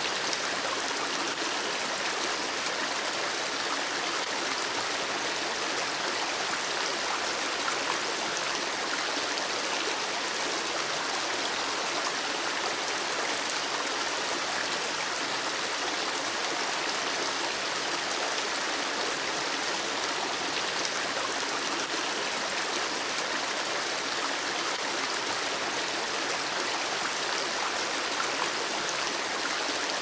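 River water flowing steadily, an even rushing hiss without breaks or changes.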